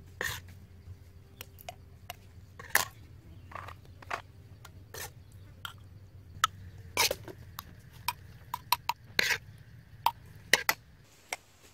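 Irregular light clicks and scrapes of a metal spoon against a steamed snail shell as the meat is scooped out.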